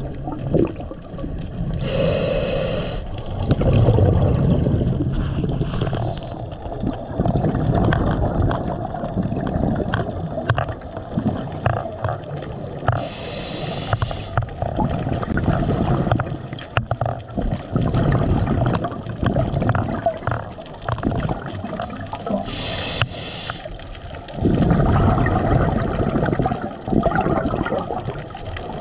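Scuba regulator breathing underwater: a short hiss of inhaled air three times, about ten seconds apart, each followed by a long low rumble of exhaled bubbles.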